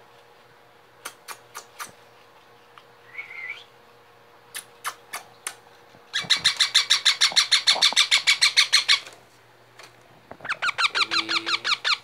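Baby ringneck parakeets calling: a few sharp clicks and a brief call, then two bouts of rapid chattering calls at about nine a second. The first bout, around the middle, lasts about three seconds; a shorter one comes near the end.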